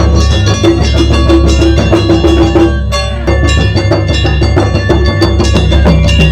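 Japanese taiko drum ensemble playing a driving beat, with held melodic notes over the drums and a brief break just before the midpoint.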